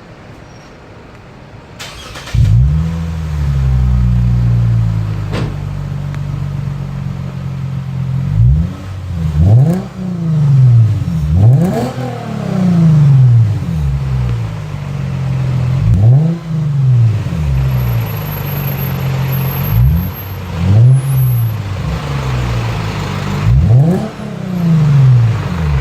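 2016 Lexus IS350's 3.5-litre V6 through a Tsudo mid-pipe and axle-back exhaust. It starts up about two seconds in and settles to an idle. It is then revved repeatedly in quick blips, each rising sharply in pitch and falling back to idle, about six times.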